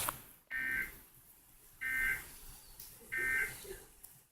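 Emergency Alert System end-of-message data signal: three short, buzzy digital squawks about 1.3 seconds apart, marking the end of the alert.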